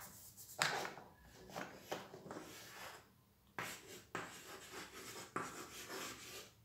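Chalk writing on a chalkboard: a series of short scratching strokes with brief pauses between them.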